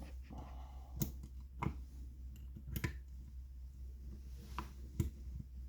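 About five light, sharp clicks and taps, spaced irregularly, from hands and parts being handled as rubber boots are worked onto a motorcycle isolastic engine mount. A steady low hum runs underneath.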